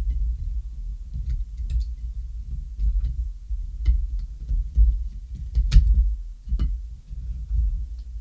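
Low, uneven thumping of hands handling a plastic smart door lock, with a few sharp plastic clicks as its battery cover is fitted and closed, the loudest click a little under two-thirds of the way through.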